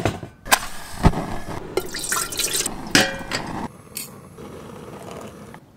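Clatter of camp coffee-making: a metal pot stand being set onto a camping stove and a metal spoon clinking against plastic cups, a series of sharp knocks and clinks, some ringing briefly, that thin out to a quieter stretch after about three and a half seconds.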